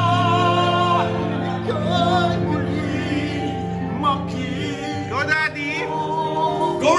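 Men singing a slow ballad into a microphone over a steady accompaniment, with a long held, wavering note in the first second and a high rising phrase about five seconds in.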